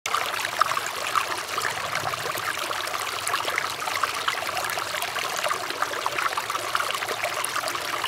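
Shallow stream water flowing and babbling steadily over plants and stones, with many small plinks and gurgles.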